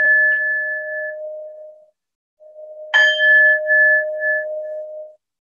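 Singing bowl ringing. One strike, made just before, fades away over the first two seconds, and a second strike about three seconds in rings for about two seconds, its higher tone pulsing as it dies away. It is rung to bring the class out of final relaxation.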